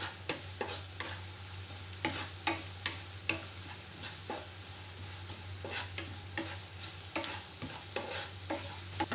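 Sliced onions, green chillies and curry leaves frying in hot coconut oil in a nonstick pan with a steady sizzle, while a wooden spatula scrapes and knocks against the pan at irregular intervals as they are sautéed soft.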